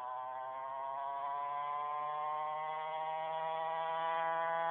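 49cc two-stroke pocket bike engine buzzing, its pitch creeping slightly higher and growing steadily louder as the bike approaches.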